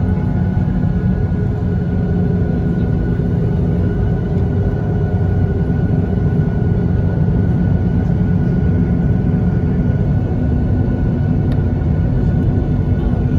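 Steady engine and airframe rumble of a Boeing 737-900ER with its CFM56 turbofans running, heard inside the passenger cabin, with a few steady engine tones over the low drone.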